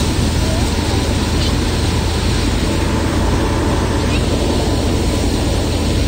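Steady, loud rushing noise of a running machine, unbroken and unchanging.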